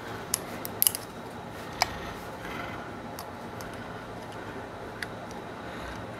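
Sharp metallic clicks of a .45 high-capacity 1911 pistol's parts being handled and fitted together during reassembly: about five clicks, most in the first two seconds, including a quick pair just before one second, and one more about five seconds in, over a faint steady hum.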